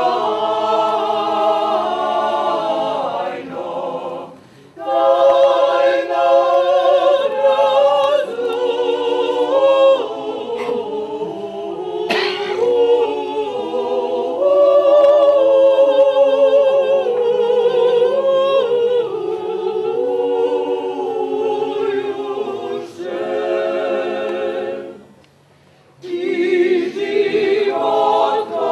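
Mixed church choir singing a cappella, in phrases broken by two short pauses: one about four seconds in and one near the end.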